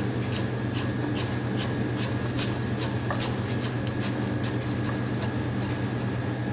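Chef's knife slicing a rolled stack of leafy greens into thin ribbons (chiffonade) on a plastic cutting board: steady, even knife taps about three a second, over a low steady hum.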